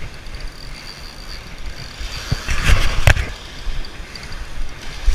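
Wind buffeting the camera microphone over small surf waves washing onto the sand, with two sharp knocks about three seconds in.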